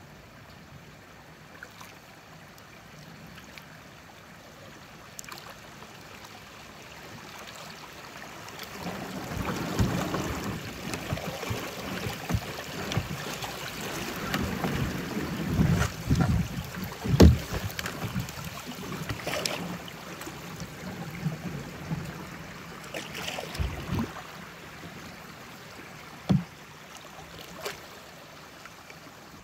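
Kayak moving through river current: water rushing and splashing around the hull and paddle, growing louder about a third of the way in as the boat reaches a riffle. A few sharp knocks stand out, the loudest just past halfway.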